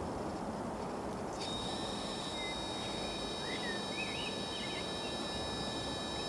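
Jet airliner on final approach, heard from a distance: a steady low noise, joined about a second and a half in by a steady high engine whine made of several tones. A few short bird chirps come a couple of seconds in.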